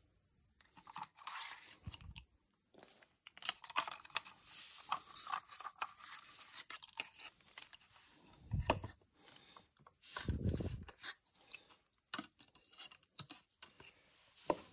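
Plastic handling noise: a thin plastic cup and spray-pump parts crinkling, scraping and clicking in the hands, with a few dull knocks.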